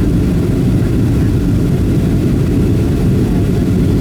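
Steady low rumble of a Boeing 737-700's CFM56 engines and airflow heard inside the passenger cabin in flight.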